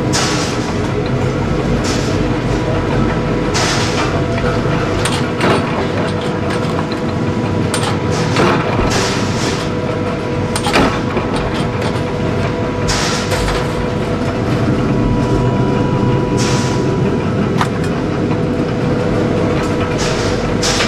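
Mechanical flywheel power press running steadily, with sharp metal clanks every one to three seconds, irregularly spaced, as it stamps and forms a red-hot steel shovel blade.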